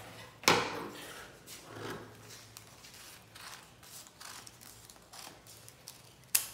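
Scissors cutting through folded layers of paper: a run of faint snips and paper rustles, with a sharp knock about half a second in and another near the end.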